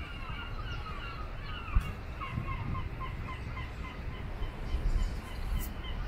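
Birds chattering: a continuous run of short, repeated chirps several times a second, over a low rumble, with a single thump a couple of seconds in.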